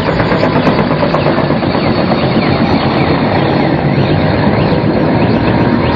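Mil Mi-8 helicopter flying low overhead: the main rotor and twin Klimov turboshaft engines running loud and steady.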